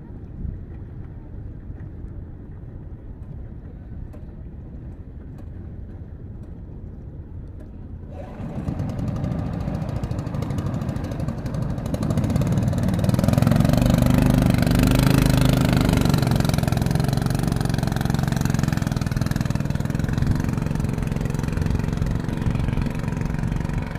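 Small engine on a paddle canoe running during a test run: low and steady at first, then louder about a third of the way in, and louder again near the middle, with a steady low hum.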